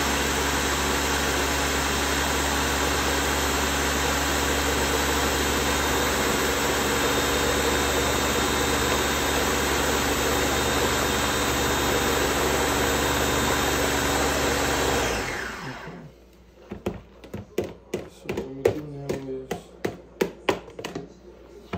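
Ninja countertop blender running steadily on high, blending soaked puppy kibble and water into a thick mush, then winding down about three-quarters of the way through. After it stops, a metal spoon clinks and scrapes in a plastic bowl in a quick irregular run of knocks.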